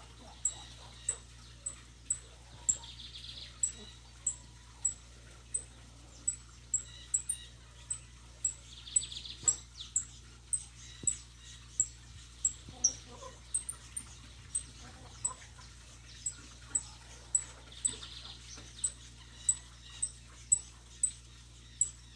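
Saffron finch (canário-da-terra) calling: short, sharp, very high notes repeated about twice a second, with a few fainter, longer notes lower down now and then.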